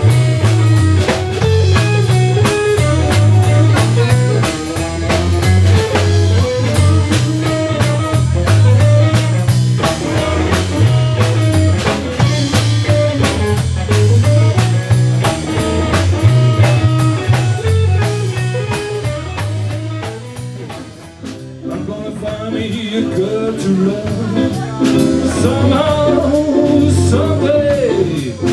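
A blues-rock band playing live: electric guitar over bass and drum kit, in an instrumental passage. The band drops back briefly about two-thirds of the way through, then picks up again.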